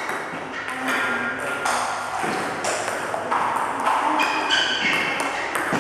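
Table tennis balls being struck by bats and bouncing on the table in a quick multiball drill, one player feeding balls and the other returning them: a steady run of sharp clicks and pings, a few each second.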